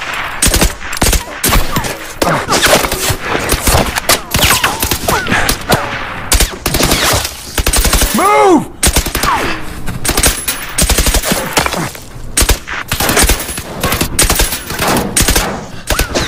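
Rifle and automatic-weapon gunfire in a sustained exchange: many shots in rapid, irregular succession with a few short pauses.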